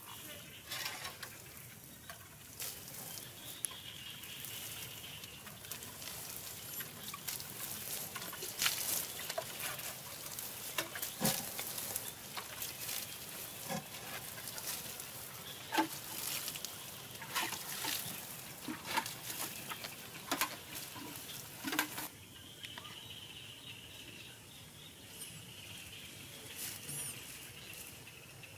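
Irregular patter and light taps of water being sprinkled onto grass and bare feet moving over it, with a faint steady high-pitched hum at the start and again near the end.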